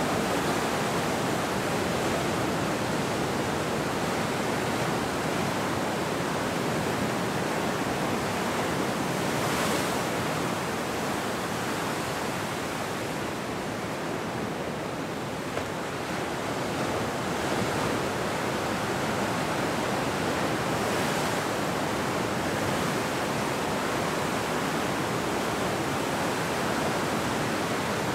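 Ocean surf breaking and washing in, a steady rush of white water. Louder breaks come about a third of the way in and again about three quarters through, with a slight lull between them.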